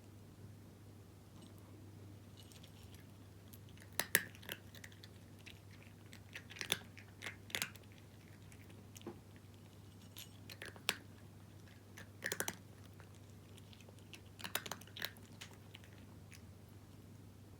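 A cat crunching dry kibble, in irregular clusters of sharp crunches a second or two apart. A steady low hum sits underneath.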